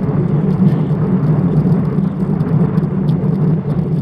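Steady wind rush and road noise on a Shimano CM1000 action camera's microphone while cycling along a road.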